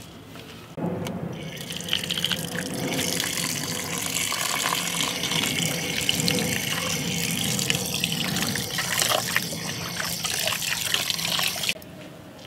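A stream of water pouring and splashing into a pot of raw pork chunks while hands rub and turn the meat to wash it. It starts suddenly about a second in and cuts off near the end.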